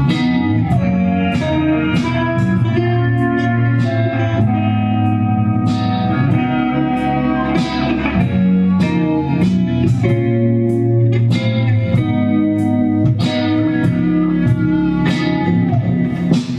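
A rock band playing live, with guitar carrying the sound over a steady drum beat.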